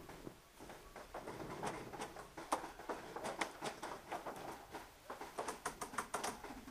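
Paintball fire: irregular sharp pops and cracks, some single and some several in quick succession near the end.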